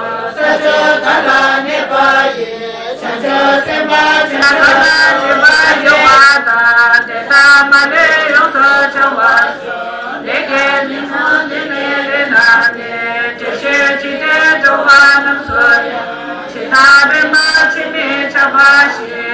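A roomful of voices, mostly women's, chanting Tibetan Buddhist prayers together from their prayer texts in a continuous rapid recitation.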